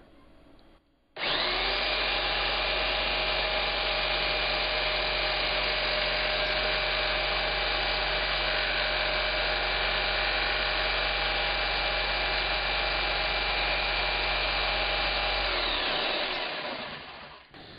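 Electric jigsaw with a down-cutting (reverse-tooth) blade cutting slowly through a clear acrylic sheet. It starts suddenly about a second in, runs at a steady speed, and winds down near the end.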